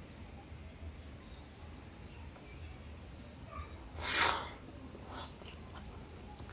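A person eating spicy food lets out one short, loud rush of breath through the nose or mouth about four seconds in, with a smaller, sharper breath noise about a second later, over faint eating noises.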